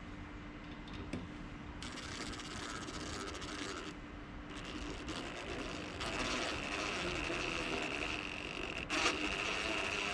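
DeWalt cordless drill driving a screw into a wooden post, in two runs. The second run is longer and louder, with a steady motor whine and a sharp knock about nine seconds in.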